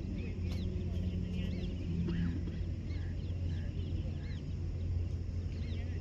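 Several small birds chirping, short rising-and-falling notes repeating and overlapping, over a steady low rumble.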